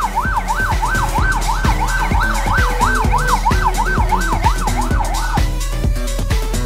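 Police car siren in yelp mode, rising and falling rapidly about two and a half times a second, over background music with a steady beat. The siren cuts off about five seconds in while the music carries on.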